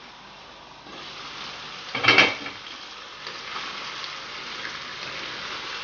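Chicken thigh pieces sizzling in oil in a frying pan. The sizzle gets louder about a second in as the glass lid comes off. A loud clatter of cookware comes just after two seconds, then a wooden spatula turns the pieces over a steady sizzle with small pops.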